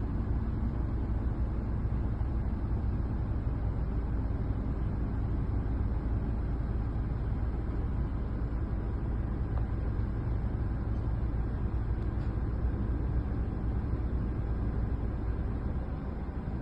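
Heavy machinery engine running steadily, its sound mostly low-pitched and unchanging throughout.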